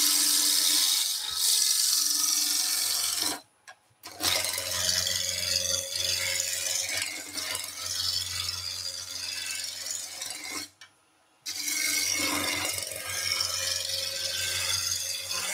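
Roughing gouge cutting a square pine newel post spinning on a wood lathe at about 1,300 rpm: a steady noisy cutting sound over the lathe's low hum as it roughs the corners down toward round. The sound drops out twice, briefly.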